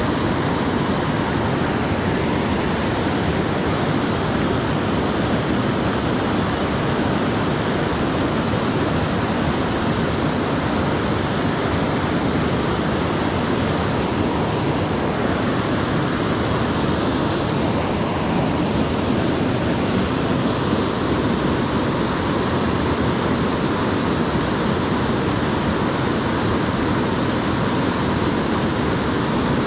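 Creek water rushing over rocks: a steady, loud, even rush of water.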